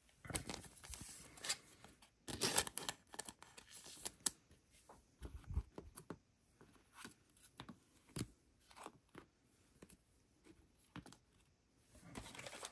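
Trading cards handled by hand: faint scattered clicks, taps and rustles of card stock as cards are picked up, flipped and laid down, in loose clusters with short gaps.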